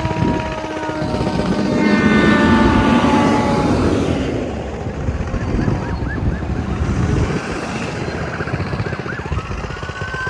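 An emergency rescue truck's siren sounding over its engine as it passes. About two seconds in comes a loud horn blast of several steady tones. After it come short, quick rising siren chirps, and near the end a siren tone that rises and then falls.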